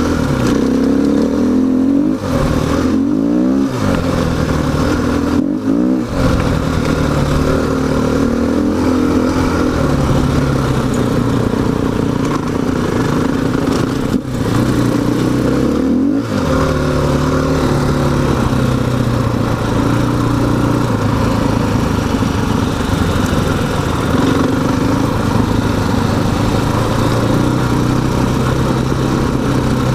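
Single-cylinder dual-sport dirt bike engine under way, revving up and down. The pitch drops and climbs again several times in the first six seconds and twice around the middle, as with throttle changes or gear shifts, then holds a mostly steady pull.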